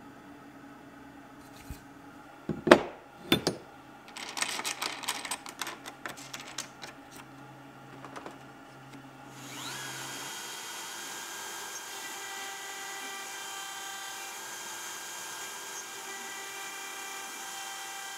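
A couple of sharp knocks and a run of rattling clicks, then about ten seconds in an Inventables CNC router spindle spins up with a rising whine and runs at a steady speed as its fine engraving bit carves into a solid brass bar.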